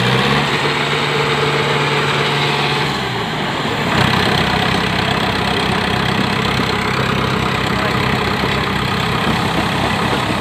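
Diesel tractor engines of a Farmtrac 60 and a John Deere 5210 working under heavy load in a tug-of-war pull, at high revs. The engine note holds steady, sags about three seconds in, then picks up again with a jolt about a second later and runs on rougher.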